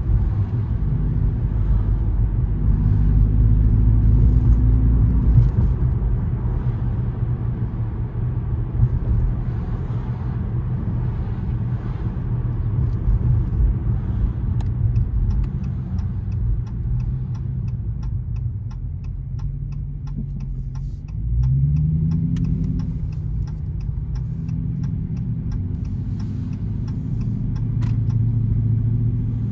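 Car driving in city traffic: steady engine and road rumble. The engine note rises as the car speeds up about two-thirds of the way through. A light, regular ticking runs through the middle and later part.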